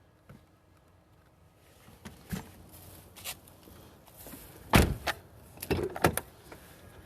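A few scattered knocks and clatters, the loudest a heavy thump about five seconds in, followed by a quick pair of smaller knocks.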